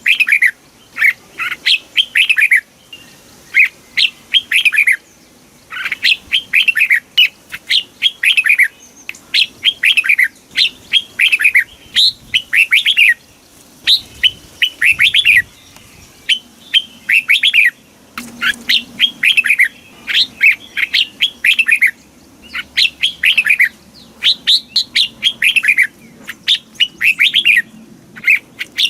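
Red-whiskered bulbul singing: short phrases of quick, falling whistled notes, one after another with brief pauses between them.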